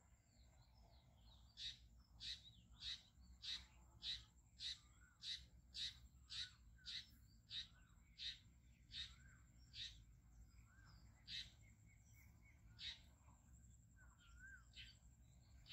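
A bird calling a long series of short, sharp, high notes, nearly two a second, that slowly spreads out and thins to a few scattered notes after about ten seconds. A faint steady high-pitched whine runs underneath.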